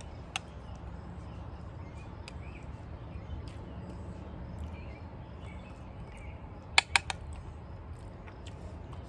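Metal spoon clicking against a bowl while eating: a light tap just after the start and two sharp clicks in quick succession about seven seconds in, over a steady low rumble and faint bird chirps.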